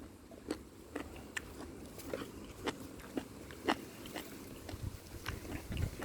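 Someone chewing a crisp raw cucumber-family vegetable with faint, irregular crunches, about one every half second.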